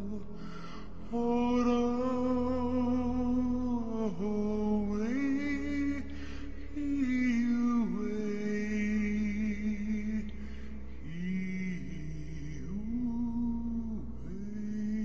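Slow background music: long held notes, each lasting a second or more, gliding up or down into the next, over a steady low drone.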